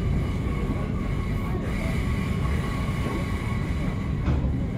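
Melbourne HCMT electric train running, heard from inside the carriage: a steady rumble of wheels on track with a steady high whine over it.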